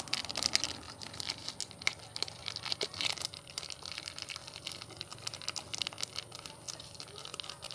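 Plastic seasoning sachet crinkling as powdered seasoning is shaken out of it over raw frogs, a dense run of small crackles, thickest in the first few seconds.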